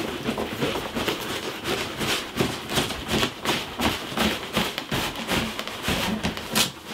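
Large cardboard boxes scraping, rubbing and knocking as an inner box is shaken and slid out of its cardboard shipping box, in quick irregular strokes.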